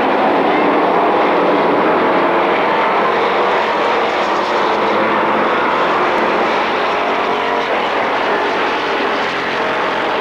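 A pack of stock car engines at racing speed on an asphalt oval, blending into a loud, steady drone.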